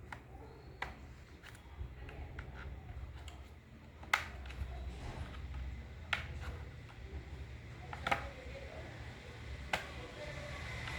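Scattered sharp clicks and taps, about seven spread irregularly, from hand work on the laptop's casing and parts during a RAM upgrade. The loudest come about four and eight seconds in.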